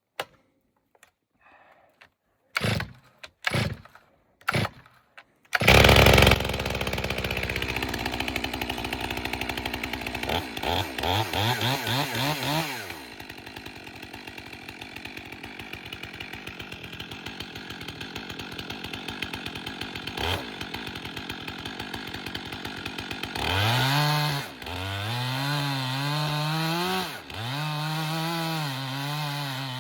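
Two-stroke chainsaw being pull-started: a few short sputters, then it catches about five and a half seconds in at high revs. It is blipped up and down a few times and settles to a quieter idle, then is throttled up near the end with a wavering pitch as it goes under load in the log.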